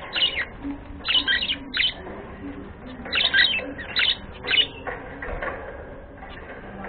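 Budgerigar chirping in several short runs of sharp, quick calls, falling quiet about five seconds in.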